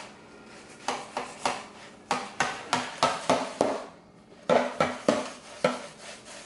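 Disposable aluminium foil pan clacking and crinkling against the counter while a knife saws fat off a raw brisket inside it: a quick series of sharp knocks, about three a second, with a short pause about four seconds in.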